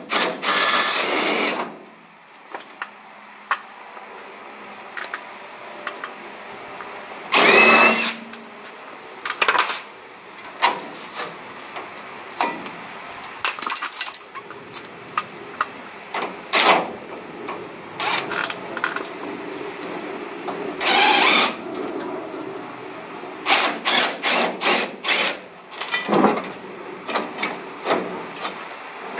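DeWalt cordless impact driver run in short bursts, three longer runs among brief ones, with knocks and clanks of tools and metal parts in between.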